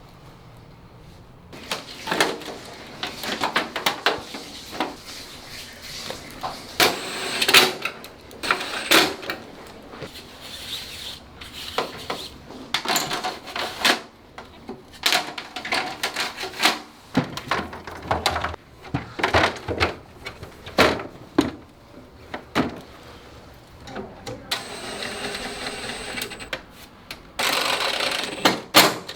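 Plastic air conditioner panels and parts being handled and fitted back together: a string of irregular clicks, knocks and rattles, with a denser stretch of noise near the end.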